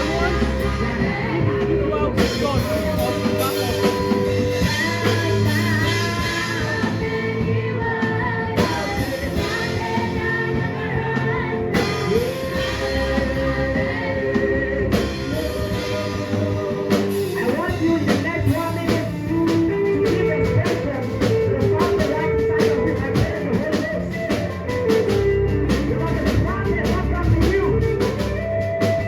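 Gospel worship song played by a band with drum kit and guitar, with singing over it.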